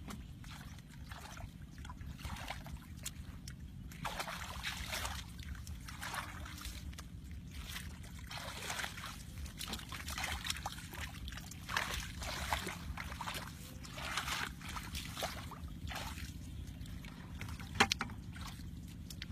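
Shallow water sloshing and splashing in irregular bursts, every half second to a second, over a steady low rumble, with one sharp knock near the end.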